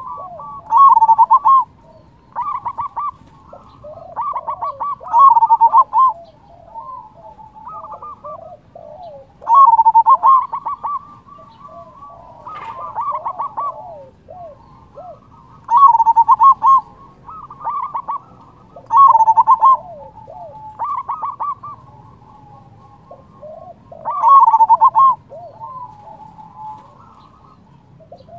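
Zebra dove (perkutut) cooing over and over. Its phrases are made of quick rolling coos, and a louder phrase comes every two to three seconds with softer coos between.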